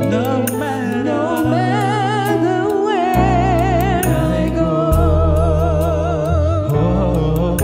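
Gospel music: a singer holding long notes with wide vibrato over steady bass notes and regular drum and cymbal hits.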